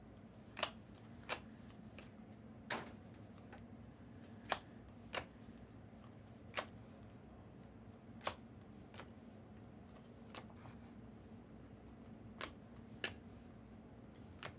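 Trading cards being handled and flicked through by hand, making about a dozen sharp card-stock clicks and snaps at irregular intervals, over a faint steady hum.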